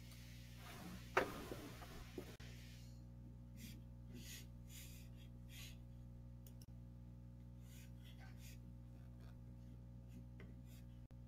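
Low-level room tone from an open call microphone: a steady low electrical hum, with a sharp click about a second in, a few smaller clicks, and then faint short hissy noises.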